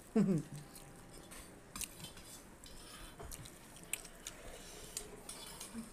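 Eating at the table: scattered light clicks and clinks of a spoon and steel bowls, with faint chewing. A short vocal sound with falling pitch opens it and is the loudest moment.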